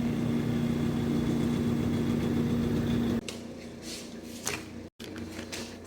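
An electric motor hums steadily, then cuts off abruptly about three seconds in, leaving a few light knocks and clicks.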